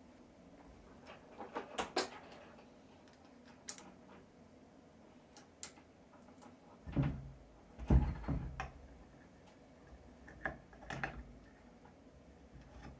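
Small metal parts of a Lucas 16W wiper motor gearbox, the crosshead link and drive cable, clicking and clinking as they are handled and fitted by hand. Two heavier knocks come about seven and eight seconds in, and a few more clicks near the end.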